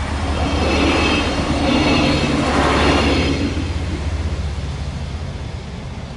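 A train passing over a level crossing at speed. It swells to its loudest about two to three seconds in, with a high ringing from the wheels, then fades away.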